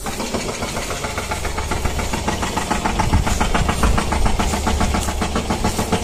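An engine running with a fast, even knocking beat.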